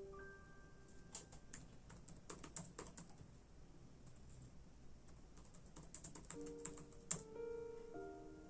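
Quiet typing on a computer keyboard in two short runs of keystrokes, with one louder key strike just after seven seconds. Soft piano notes sound at the start and again from about six seconds in.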